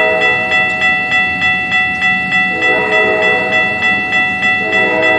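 Railroad crossing bell ringing rapidly, about three strikes a second. A train horn blows from about halfway in, with a short break near the end before it sounds again.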